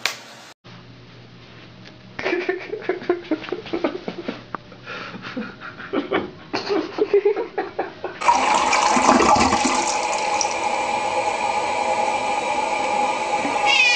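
Water: irregular sharp splashy noises for several seconds, then about eight seconds in a steady rush of running water sets in, like a toilet flushing.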